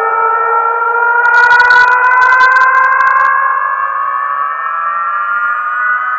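Siren-style DJ sound effect played loudly through a freshly reconed 15-inch PA speaker as a test. It is a chord of tones sliding slowly upward, with a crackling hiss on top about a second in that lasts a second or two.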